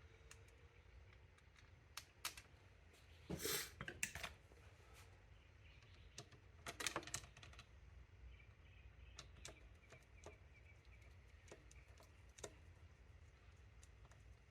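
Faint clicks and light scrapes of small metal parts and hand tools being handled, with two short clusters of louder knocks about three and a half and seven seconds in, and scattered ticks after.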